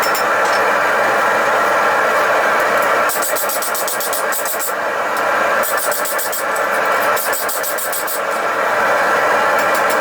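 Forge running with a steady roar. In the middle it is overlaid by two runs of rapid, sharp strikes or clicks.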